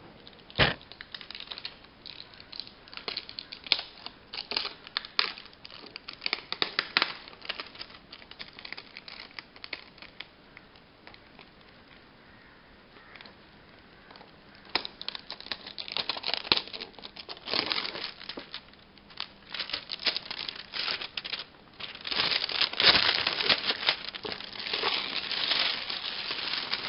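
Cardboard toy box with a clear plastic window being handled and turned over, its plastic crinkling and crackling in irregular bursts. The crackling thins out for a few seconds in the middle and is densest and loudest near the end.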